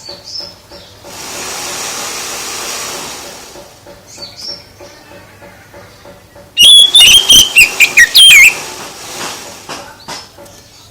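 A songbird singing a loud burst of rapid whistled notes that sweep up and down, lasting about two seconds in the second half. Before it there is a soft steady hiss and a single brief chirp.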